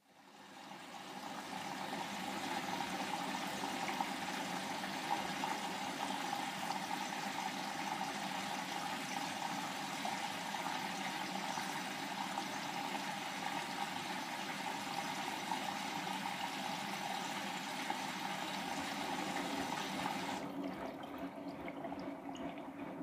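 Bosch WAY32742 front-loading washing machine taking in water: a steady rushing hiss of water entering the machine builds over about two seconds and holds. About twenty seconds in it cuts off, and the quieter sound of the turning drum goes on.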